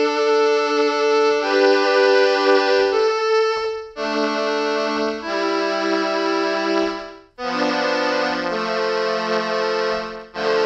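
Technics SX-K200 home keyboard playing its string ensemble preset: a run of held chords, each lasting one to three seconds, with short breaks between some of them.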